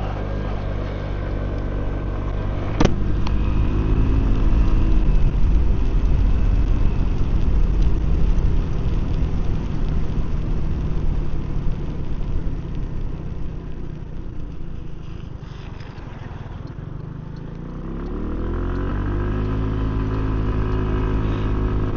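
Genuine Buddy 125 scooter's engine and exhaust heard through a mic inside the rider's helmet while riding. The pitch rises as it accelerates a few seconds in, it drops to a quieter run in the middle, and it climbs again near the end. There is a single sharp knock about three seconds in.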